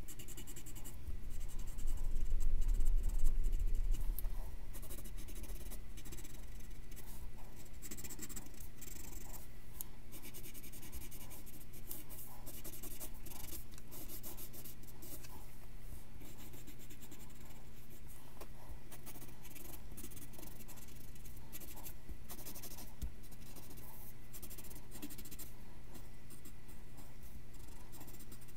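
Graphite pencil scratching on paper in many short sketching and shading strokes. A louder low rumble from about one to four seconds in, over a steady faint hum.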